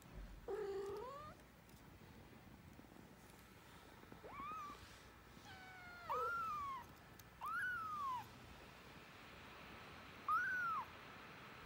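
Kitten mewing: about five short, high-pitched mews a second or two apart, the first one lower and rising.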